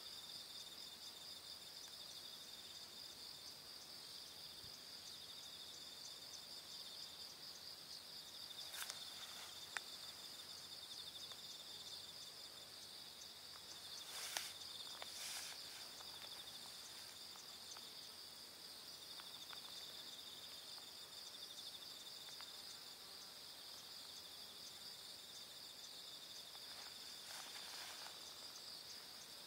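A steady, high-pitched chorus of insects trilling without a break, with a few faint short clicks.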